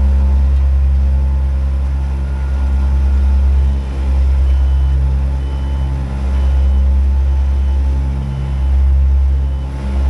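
Small ride-on compaction roller running while it compacts base rock: a steady low engine-and-drum rumble that swells and dips every couple of seconds. A faint high beep repeats about once a second from about three and a half seconds in.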